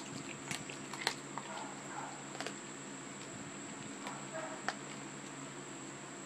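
A Cavalier King Charles spaniel chewing a raw chicken foot, the bones giving a handful of sharp crunches at irregular intervals.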